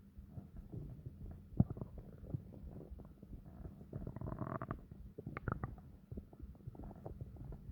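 A stomach growling and gurgling: a continuous run of low, bubbling rumbles broken by many small pops. There is a sharp pop about a second and a half in, and a higher, drawn-out gurgle around four seconds in.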